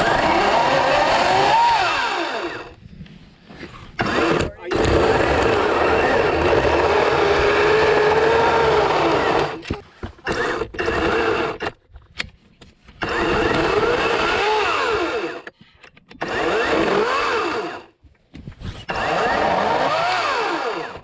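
EGO 18-inch cordless battery chainsaw running in about five bursts with short pauses between, the motor's pitch sagging and rising as the chain bites into wood.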